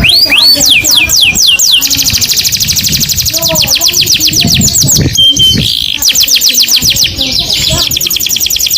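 Canary singing: long trills of rapidly repeated falling notes, a slower run of falling notes about a second in, and a brief steady whistle about five seconds in.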